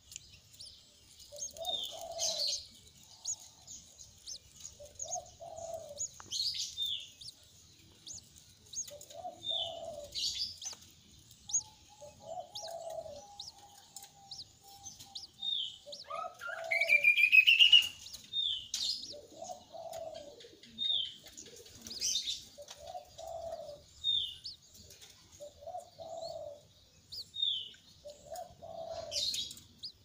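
Birds calling: a low short call repeated every one and a half to two seconds, with short high chirps in between. A louder rising trill comes about halfway through.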